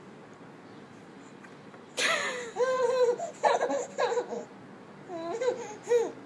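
Baby laughing and squealing in a string of short high-pitched bursts, starting about two seconds in, with a pause before a last couple of bursts near the end.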